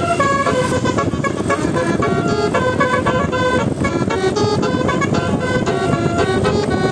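Indonesian bus telolet horn, a set of trumpet air horns playing a quick melody of short notes that change pitch several times a second, often two or more notes sounding together, with no break.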